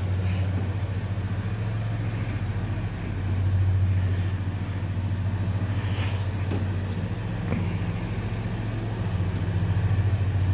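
A vehicle engine idling steadily, with a low hum. A few faint clicks come from a ratchet driving in the tail-light screws.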